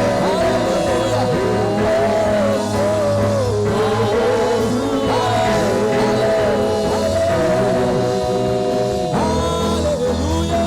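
Live gospel worship song: voices singing a melody over sustained bass and instrumental accompaniment, with the bass note dropping lower about nine seconds in.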